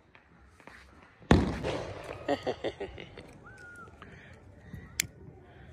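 A firecracker goes off with a single loud bang about a second in, its noise trailing away over the next second or so. A few smaller pops follow, and there is one sharp crack near the end.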